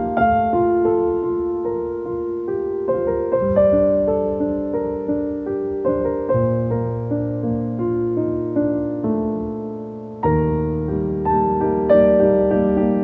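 Background piano music: slow, gentle notes and chords that ring and fade, with a fresh chord struck about ten seconds in.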